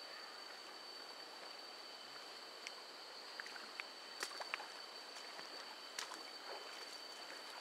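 Flowing river water with a steady high-pitched insect drone over it, and a few sharp clicks.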